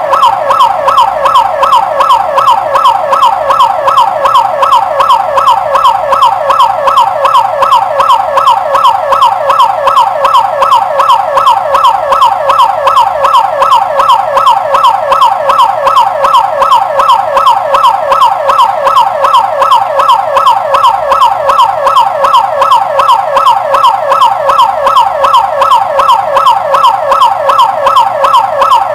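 Electronic business intruder alarm siren sounding: a loud, fast-repeating sweeping wail, about three sweeps a second, steady and unchanging.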